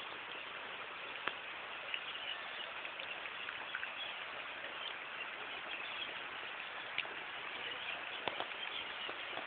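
Steady rain falling, with scattered sharp taps of drops hitting a surface.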